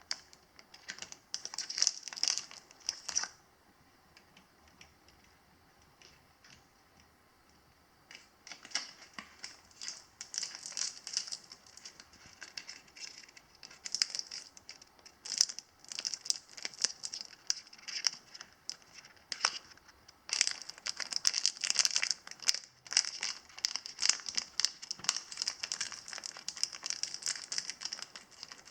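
A parrot crunching and nibbling a biscuit in its beak: dense runs of small, sharp crackling crunches. A short burst comes first, then a few seconds of quiet, then near-continuous crunching.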